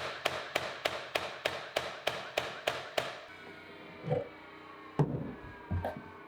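Sharp, evenly spaced strikes from a tool on wood during drawer-box assembly, about three a second, stopping about three seconds in. A falling whine follows, then three dull knocks.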